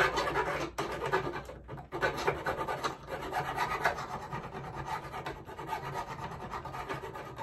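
Jeweler's hand file rasping along the rough cast edge of a sterling silver ring braced on a wooden bench pin, in quick repeated strokes. The filing smooths the edge left rough where the casting protrusions were cut off.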